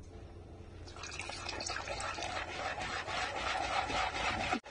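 Wire whisk beating gram flour and curd into a slurry in a plastic bowl: a fast run of rhythmic whisking strokes that starts about a second in and grows gradually louder.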